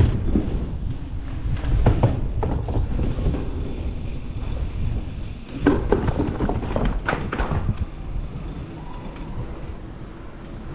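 Mountain bike in motion: a steady rumble of wind on the microphone and tyres rolling, broken by sharp knocks and clatters around two, six and seven seconds in.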